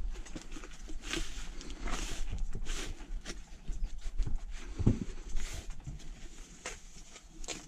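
Gloved hands pressing and shifting a wooden hole-making board on soil-filled plastic seed trays: irregular scuffs, rustles and light knocks, with a dull thump about five seconds in.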